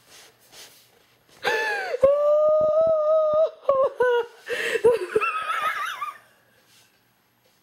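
Hard, helpless laughter from young women: a long high-pitched squeal held for about two seconds, then broken bursts of giggling that die away about six seconds in.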